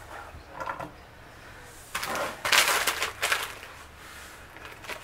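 A plastic zipper freezer bag of frozen chopped bell peppers being picked up and handled, crinkling. There are a few small crackles about half a second in, then louder crinkling from about two to three and a half seconds in.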